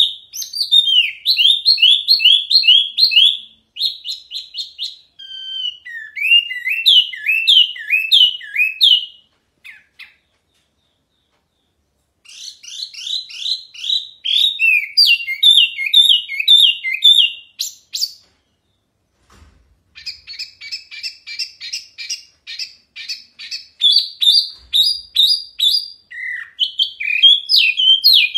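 Caged wambi mini songbird singing loudly: rapid runs of high chirps and quick falling whistled notes, in bouts broken by short pauses about ten and eighteen seconds in.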